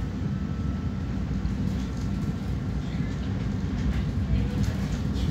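Tram running along a city street, a steady low rumble that grows slightly louder.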